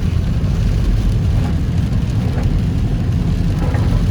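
A car being driven in heavy rain, heard from inside: a steady low road and engine rumble with the hiss of rain on the car.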